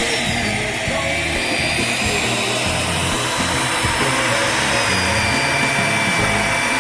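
Electric motor of an HDPE butt fusion welding machine whirring steadily, with a high whine, over background music.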